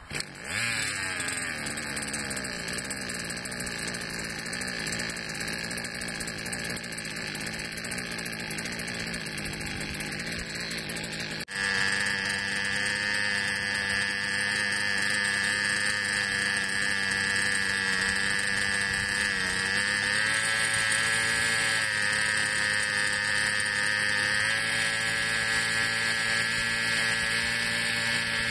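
Small gasoline engine of a gas-converted Goblin 630 RC helicopter starting and running with a buzzy note. The pitch dips just after it catches and then settles. An abrupt break comes about eleven seconds in, after which it runs louder and steady, edging up slightly in pitch later on.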